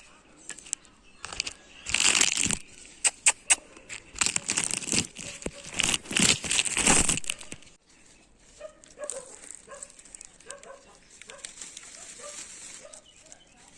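Paper bag of lavasa bread rustling and crinkling in repeated bursts as it is handled. Near the middle it goes quieter, with only faint short calls.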